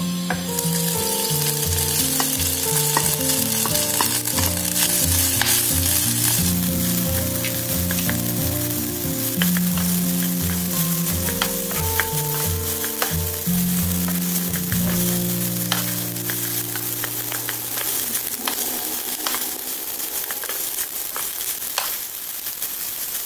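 Cooked rice sizzling in hot oil and fried garlic in a nonstick pan, loudest in the first few seconds after it goes in, while a wooden spatula stirs it with frequent short scrapes and taps against the pan.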